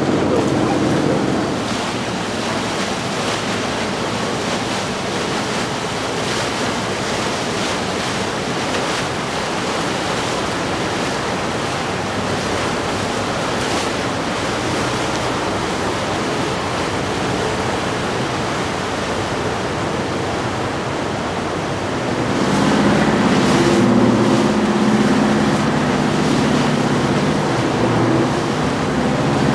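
Steady rush of water and wind from boats running through the waterway, with the low, even drone of a passing motor yacht's engines at the very start and again for the last several seconds.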